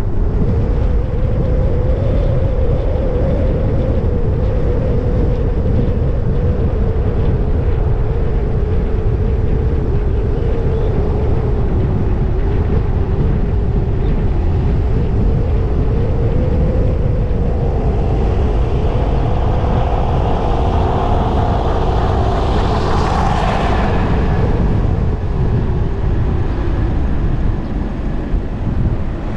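A car driving on a paved road: steady low rumble of wind and road noise with a wavering engine hum. A louder, brighter passing sound swells and fades about two-thirds of the way through.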